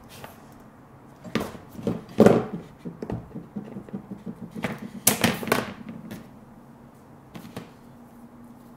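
Gray VVF electrical cable being handled on a work board and cut with the cutter of a blue-handled electrician's wire stripper: scattered clicks and knocks, the sharpest snaps about five seconds in.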